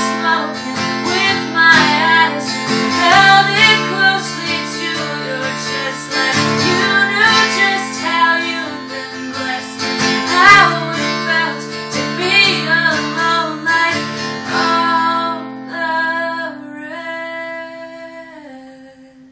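A woman singing to her own strummed acoustic guitar in a folk song. About three-quarters of the way through the strumming stops and the last chord rings out, fading away.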